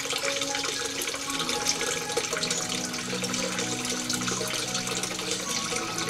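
Steady sound of running water under soft background music of slow, held notes.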